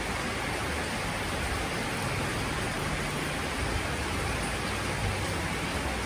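Steady rain falling, an even hiss with no separate drops or other events standing out.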